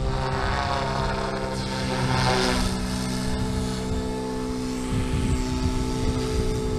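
SAB Goblin 380 electric RC helicopter in flight, its motor and rotor blades giving a steady pitched hum. A higher whine swells about two seconds in, as it manoeuvres and passes.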